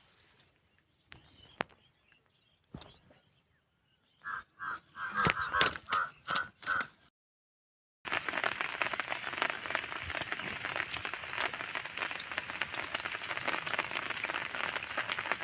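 A bird calling about six times in quick succession. After a break, a steady hiss of light rain falling.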